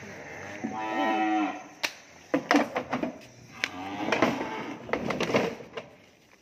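A cow mooing: a long call about a second in, then more calls, with a few sharp knocks in between.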